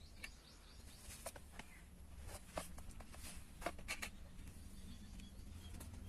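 Faint rustling and a few light clicks of things being handled, in small clusters, over a low steady rumble.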